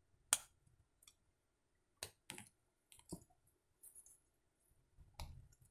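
Small plastic pieces of a toy crushable car clicking against each other as they are pressed and fitted together by hand, which the pieces are resisting: about six short, sharp clicks at uneven intervals, the loudest about a third of a second in.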